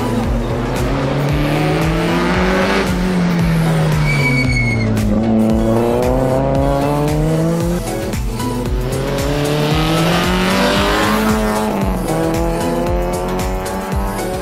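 Citroën Saxo rally car's engine revving hard, its pitch climbing and dropping again and again through gear changes and lifts. There is a break near eight seconds, where it picks up again. A short high squeal comes about four seconds in.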